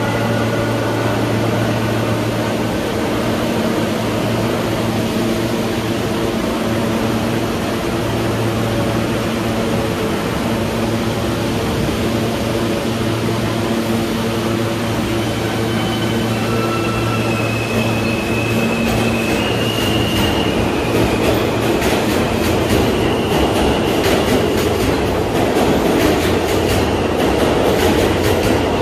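New York City Subway train in an underground station, running with a steady low hum at first. From about halfway, thin high-pitched whining or squealing tones come in. It then builds into a louder clatter of wheels over the rails toward the end.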